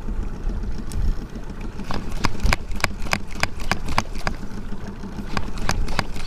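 Boat engine idling with a steady low hum. From about two seconds in, a run of sharp clicks, roughly three a second, as the Shimano Stradic spinning reel is cranked and the jig worked.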